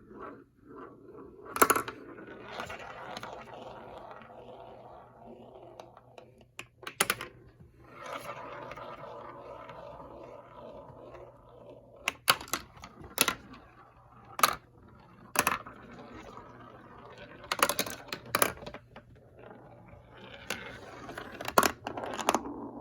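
Marbles rolling down a plastic marble-run track in long rattling runs, with sharp clacks each time a marble drops onto a piece or strikes another marble.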